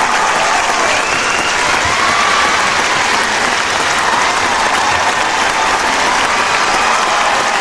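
Large crowd applauding steadily, with cheers and calls rising over the dense clapping.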